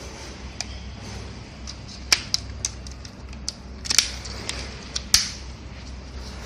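Sharp plastic clicks and snaps from a Loreda trail camera's housing as it is handled and its case is shut, a cluster of them in the middle with the loudest about four and five seconds in. A steady low hum runs underneath.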